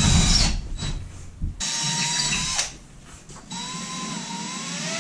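Cordless DeWalt drill running in bursts as it bores holes in drywall for wall anchors. It is loudest at the start, stops for about a second around three seconds in, then starts again with a rising whine.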